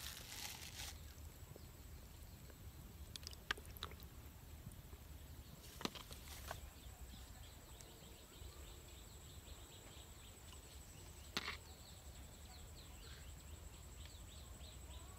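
Faint outdoor ambience: a low background rumble, faint bird chirps repeating toward the end, and a few sharp clicks, likely handling of the fishing line and bait.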